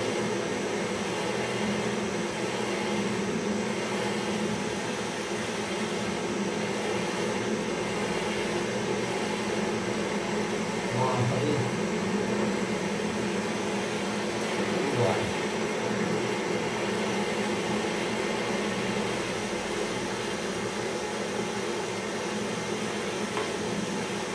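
Handheld gas-canister blowtorch burning with a steady hiss, its flame heating a small traditional pressure popcorn machine.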